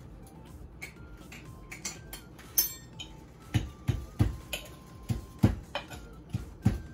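Wooden pestle pounding boiled cassava and sugar in a wooden mortar: dull thuds about two to three a second, starting about halfway through. Before that, light clicks and clinks as sugar is spooned in from a glass jar.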